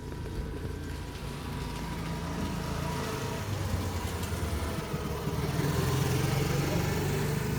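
A motor vehicle's engine running with a steady low hum, getting louder through the second half, as if the vehicle is drawing near.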